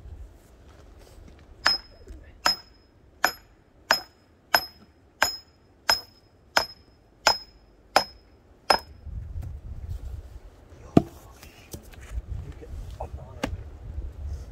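A hammer striking metal: about eleven steady blows, roughly one and a half a second, each with a short ringing ping, then a pause and two more single, harder knocks.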